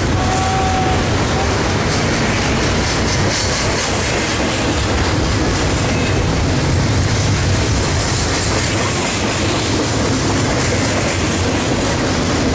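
Double-stack container freight train passing close at speed: the steady, loud noise of its wheels and cars running along the rails.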